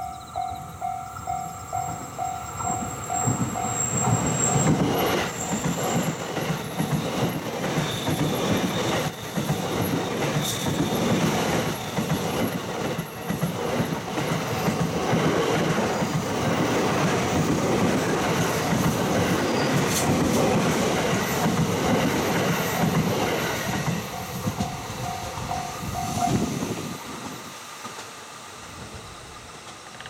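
Level-crossing bell dinging in a steady repeating rhythm, then a 285 series Sunrise Express electric sleeper train passing close from about four seconds in: a long loud rush of wheel noise with clickety-clack over the rail joints. The crossing bell comes through again near the end as the train clears, and stops.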